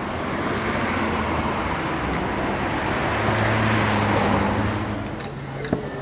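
A JR Joban Line electric train running past: a steady rush with a low hum that swells about three seconds in and fades away after five seconds, followed by a few sharp clicks.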